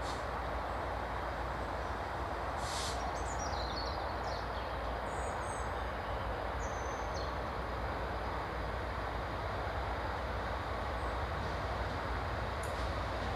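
Class 66 diesel freight locomotive approaching from a distance: a steady low rumble of its two-stroke V12 engine and train that grows slightly louder near the end. A few bird chirps come about three to six seconds in.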